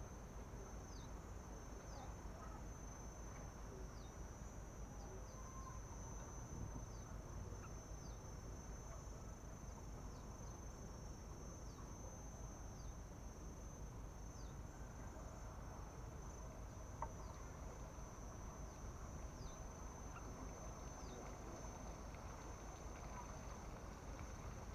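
Insects, likely crickets, trilling steadily at a high pitch, with short high falling chirps repeating about once every second or so over a low rumble.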